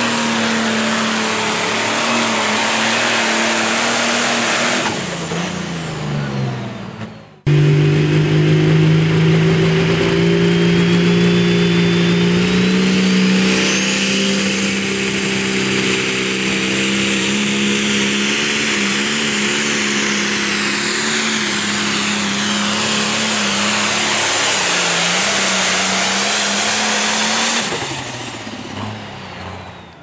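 Turbocharged diesel pulling tractors at full throttle on a pull, two passes cut together. The first engine holds its note and then winds down about five seconds in. After a sudden cut, a second engine pulls hard with a turbo whine that rises steeply, holds, and then winds down and fades near the end.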